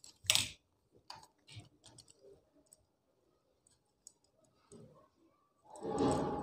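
Small clicks and handling noise of wire and a plastic switch board as a regulator wire is fitted to the switch's brass screw terminal: one sharp click just after the start, scattered faint ticks, and a louder stretch of handling noise near the end.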